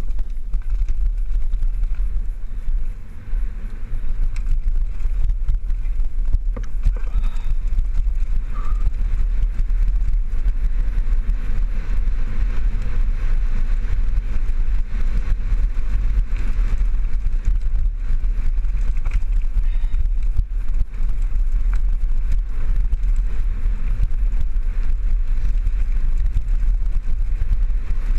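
Steady, loud low rumble of wind buffeting the action camera's microphone as a mountain bike rolls fast down a dirt and stony trail, with tyre noise and small rattles and clicks from the bike over the rough ground.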